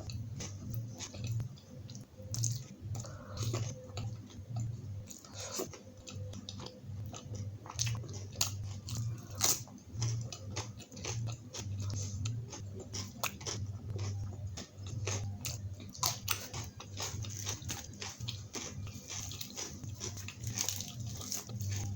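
A person chewing and biting a meal of butter naan, kadai paneer and salad close to the microphone, with many sharp, irregular mouth clicks and crunches.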